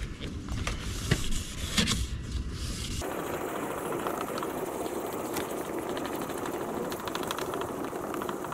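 Sandpaper rubbed by hand over a Hyundai i10's plastic headlight lens. A few scattered scrapes and clicks come first, then a steady scratchy rubbing starts abruptly about three seconds in. The sanding noise grows quieter as the plastic surface gets smoother and more level.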